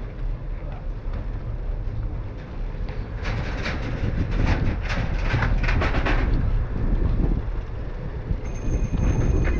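Steady low rumble of wind and tyres on a bicycle-mounted camera, with a few seconds of irregular mechanical clatter about three seconds in while riding alongside a parked refrigerated box truck. A faint high whine comes in near the end.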